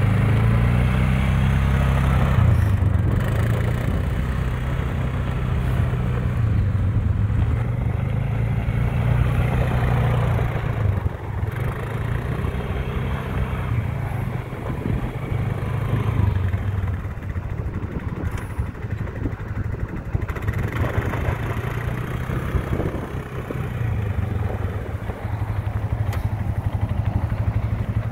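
2013 Polaris Sportsman 550 EFI ATV's single-cylinder four-stroke engine running while it is ridden at low speed, the engine note rising and easing with the throttle.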